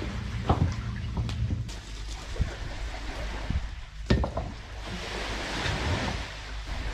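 Heavy stones knocking as they are carried and set down on a shingle beach, with footsteps crunching on the pebbles. A few sharp knocks, the loudest about four seconds in, over a steady wash of surf.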